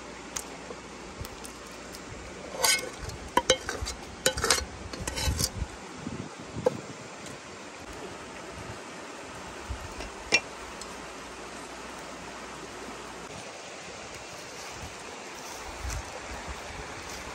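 A metal spoon clinking and scraping against a stainless steel pot and bowl, in a quick cluster of sharp clinks a few seconds in and one more clink near the middle. A steady outdoor hiss lies underneath.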